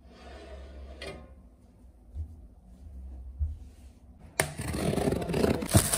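Low handling rumble, then about four seconds in a sudden, louder stretch of rustling and scraping with a sharp click near the end.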